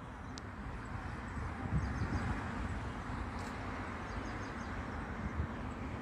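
Steady outdoor background rumble and hiss by a lagoon, with a few faint high bird chirps about three and a half seconds in.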